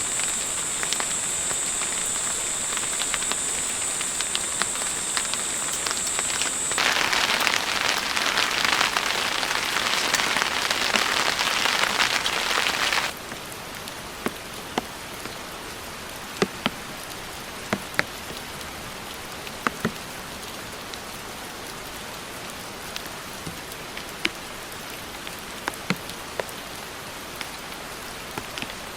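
Rain falling, with a steady high whine over it for the first few seconds. A louder rush of rain follows and cuts off suddenly about 13 seconds in. After that comes quieter rain, with separate drops tapping now and then.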